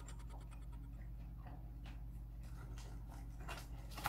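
Low steady hum of a quiet room with faint scattered ticks, and a light click near the end as chopsticks pick food from a plastic takeout container.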